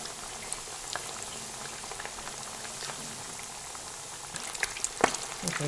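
Potato-starch-coated chicken thigh pieces deep-frying in hot canola oil: a steady hiss of fine bubbling with scattered small crackles, and one sharp pop about five seconds in.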